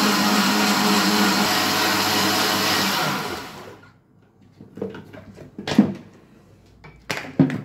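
Moulinex countertop blender running at a steady speed, blending fruit and water into juice, then spinning down and stopping about three seconds in. A few short knocks follow.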